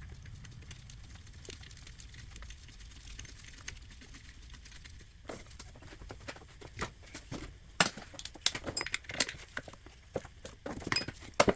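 Hand tools clicking and clinking against metal while the new idler pulley's bolt and lock nut are worked on. Scattered sharp clicks start about five seconds in; the loudest come a little under halfway through and just before the end.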